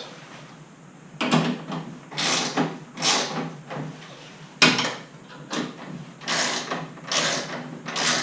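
Tank strap bolts being tightened by hand: a series of short scraping strokes from the tool, roughly one a second.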